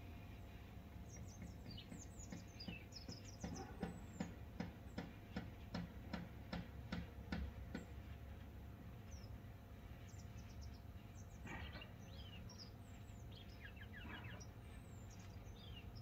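Grey wagtail calling: thin, high chirps and short falling whistled notes, repeated on and off, over a steady low rumble. In the first half comes a run of sharp ticks, about three a second for some four seconds, the loudest sounds here.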